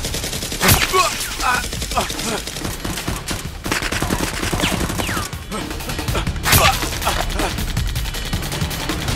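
Movie-style gunfire sound effects: rapid, dense bursts of shots, with two louder blasts, one about a second in and one about six and a half seconds in.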